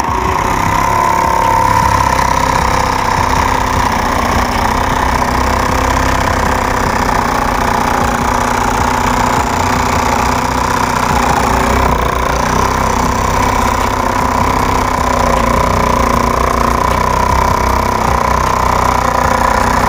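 Homemade scroll saw driven by a 775 DC motor, running steadily as its reciprocating blade cuts a curved line through a thin PVC sheet. A steady mechanical hum with a high tone that starts suddenly and holds even throughout.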